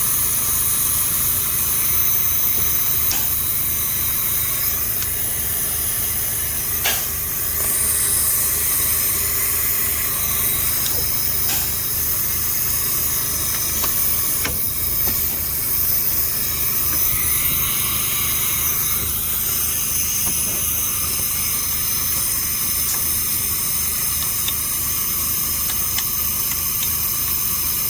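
Compressed air hissing steadily from a leak in the air system of a 1987 Freightliner cabover, over the even low beat of its Big Cam Cummins diesel idling.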